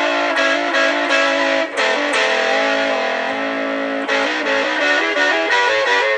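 Electric guitar played through a DigiTech Whammy DT in harmony mode, each note doubled by a pitch-shifted voice a third above. A quick run of picked notes, with one note held for about two seconds in the middle.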